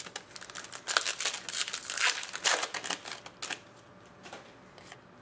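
Baseball cards handled and flipped through by hand, cards and wrapper rustling and flicking in a quick run of short sounds about a second in that thins out after three and a half seconds.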